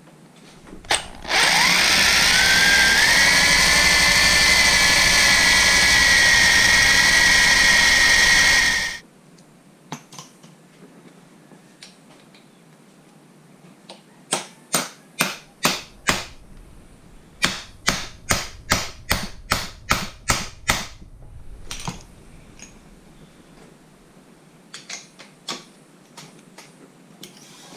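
Power drill spinning up with a rising whine and running steadily for about eight seconds, drilling out the head of a stripped 4 mm Allen bolt with a 13/64 bit. Then two runs of sharp taps, about seven and then about a dozen, as a T30 Torx bit is driven into the drilled head.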